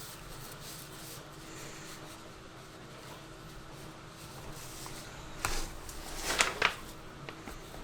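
Quiet room background with a few brief rustling, scraping handling noises, two short clusters about five and a half and six and a half seconds in.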